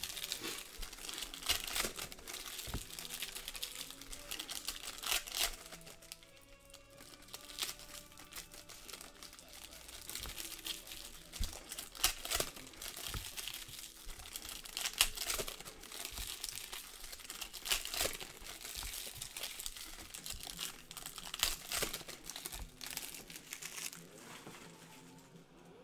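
Foil trading-card pack wrappers crinkling and tearing as packs are ripped open and handled, in a run of sharp crackles. Quiet background music plays beneath.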